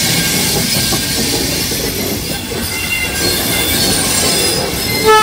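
Mumbai local train running: a steady rumble and rattle of wheels on track, with faint squeals. A loud horn blast starts near the end.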